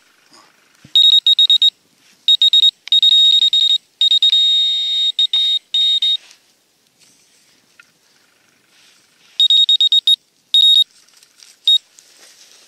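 Metal detector beeping at a buried metal target: groups of quick high-pitched pulses, with a longer unbroken tone about four seconds in, and another run of pulses near the end.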